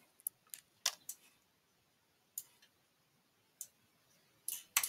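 Faint, isolated clicks of a computer mouse, about six spread unevenly, with a couple close together near the end.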